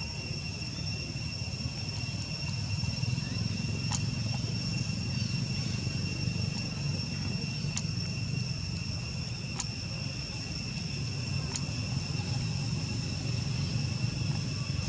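Steady outdoor ambience: a continuous high-pitched insect drone over a low rumble, with a few faint clicks about two seconds apart.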